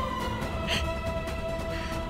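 Tense, suspenseful background music with long held notes over a low rumble, and a brief bright accent about three quarters of a second in.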